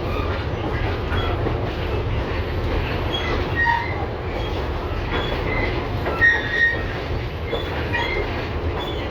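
LVS-2009 tram running along the rails with a steady low rumble. Short high-pitched wheel squeals come about four seconds in and again a little past six seconds, the second the loudest.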